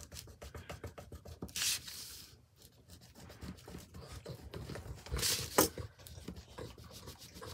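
A pencil scratching quickly back and forth along the edge of a cardboard box, shading the edges dark. Two louder scraping swishes come about one and a half seconds in and again past five seconds, the second followed by a sharp tick.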